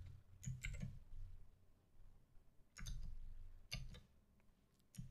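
A few faint, scattered clicks of computer keyboard keys, some close together in pairs, over a faint low hum.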